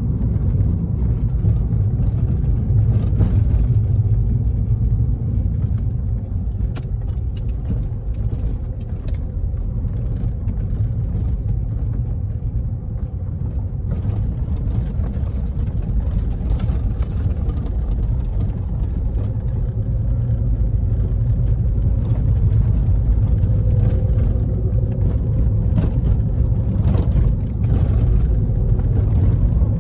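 A car being driven: a steady low rumble of engine and tyres on the road, with scattered light knocks and a faint steady hum joining in near the end.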